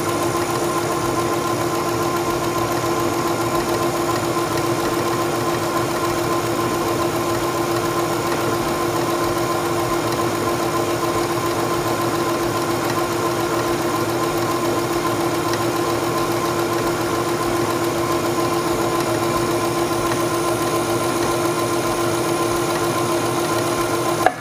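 Singer Stylist 7258 computerized sewing machine running at a steady speed, sewing a decorative vine-pattern stitch through fabric; the motor stops right at the end.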